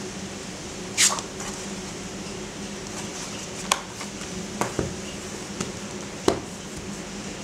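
A paperback book with thick, rough-edged pages handled by hand: a page swishes over about a second in, then come several short taps and knocks as the book is closed and its cover handled on a table. A steady low hum runs underneath.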